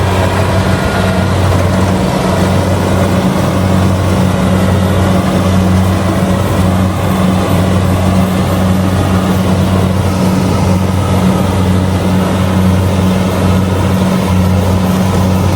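Kubota DC70G rice combine harvester running steadily at working speed, a constant low diesel drone with the noise of its cutting and threshing machinery over it.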